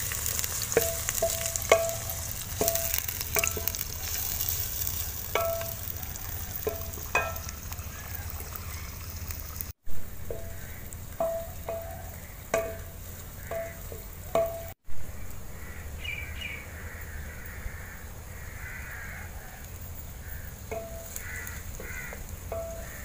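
Roughly chopped onions sizzling in hot ghee in an aluminium pot, the first light fry. A wooden spoon knocks and scrapes against the pot's side in runs of quick taps as they are stirred. The sizzle is loudest at first and thins out after a few seconds.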